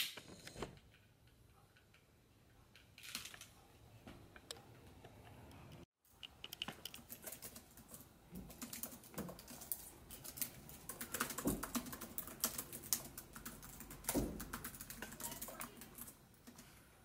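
Lighting a candle: quiet, irregular small clicks and scrapes, a few at first, then a dense run of them after a brief silence about six seconds in.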